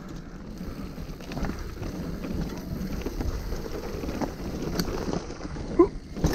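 Wind rushing over the microphone and tyres rolling over loose dirt as a mountain bike rides down a trail, with clicks and rattles from the bike, growing louder as it gathers speed. A brief, sharp, rising sound comes near the end.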